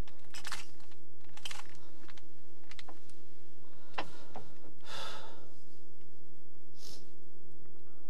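A 3x3 Rubik's cube being turned by hand: short plastic clicks and rattles of the layers twisting, in separate bursts a second or two apart, the longest about five seconds in. A steady low hum runs underneath.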